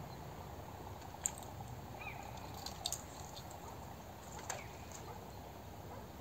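Steady low rush of the flowing river, with a few short, sharp clicks spread through it and a brief bird chirp about two seconds in.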